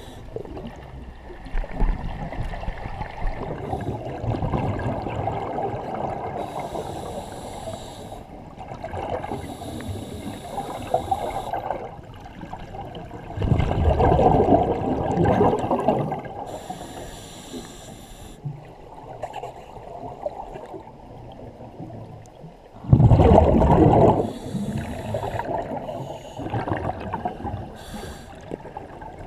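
Scuba regulator breathing heard underwater. Each inhalation draws a hiss through the demand valve, and each exhalation releases a gurgling rush of exhaust bubbles. The loudest bubble burst comes near the end.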